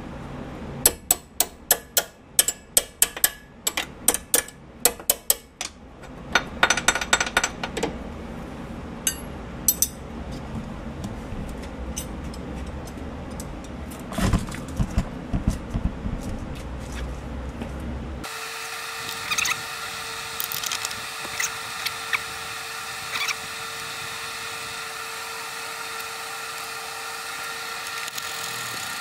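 Hand wrench clicking in quick, even strokes on a sway bar end-link nut, with metal taps and rattles from the suspension parts. About two-thirds of the way through, the sound cuts abruptly to a steady droning tone with scattered faint clicks.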